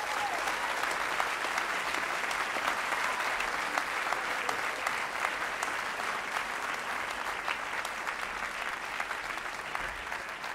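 Large concert audience applauding: dense, steady clapping that eases slightly toward the end.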